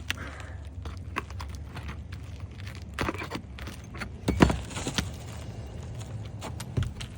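Steel pry bar clicking, scraping and knocking against asphalt shingles and roofing nails while prying out the fasteners, in irregular strokes, with the loudest knocks about four and a half seconds in.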